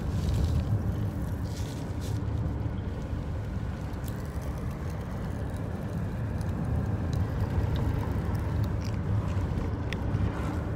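Steady low rumble of a car on the move, heard inside the cabin, with a few faint sharp ticks.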